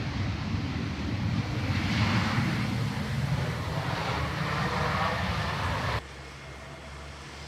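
Jet engine noise from an Aurigny Embraer 195 rolling along the runway, swelling about two seconds in. It cuts off suddenly near the end and gives way to a quieter, steady rumble.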